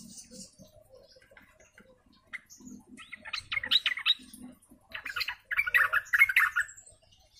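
Yellow-vented bulbul singing two bursts of rapid, chattering notes, the first about three seconds in and the second just after.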